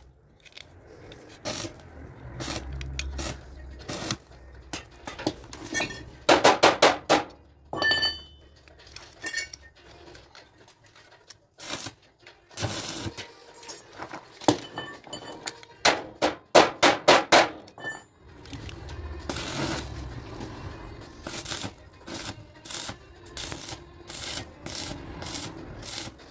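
Metal clinking and tapping as thin wire is worked around a steel knife blade, with two short runs of quick, rapid strikes.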